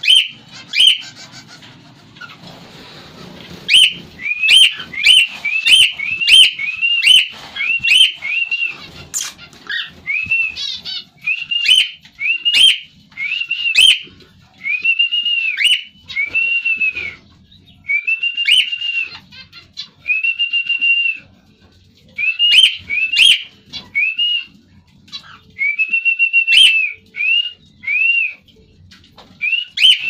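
Cockatiel whistling: a long run of clear, arched notes, each rising then falling, repeated in quick series with short gaps, mixed with short sharp chirps.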